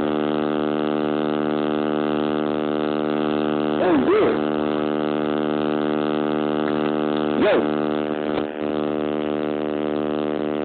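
Loud, steady electrical buzz from a damaged recording microphone, covering everything else, with two brief voices breaking through about four and seven seconds in.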